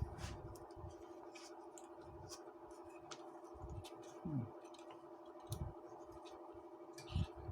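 Steady electrical hum with scattered sharp clicks and a few soft low knocks, as of small parts or tools being handled.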